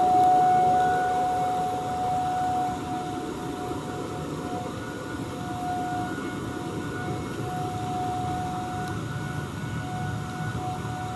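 Outdoor warning sirens sounding a steady alert tone that swells and fades every second or two, as a rotating siren turns. A second, lower siren tone winds down and dies out about a second in, over a steady background rush.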